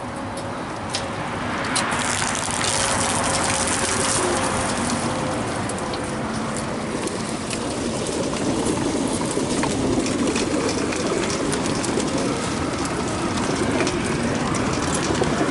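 Water gushing from a hose into the drinking troughs of racing-pigeon transport crates. It swells up loudly about two seconds in, then runs on steadily, with many small clicks and knocks among it.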